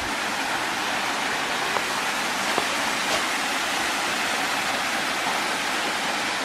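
Steady rush of water from a small woodland creek and its waterfalls, even and unbroken, with a few faint clicks in the first half.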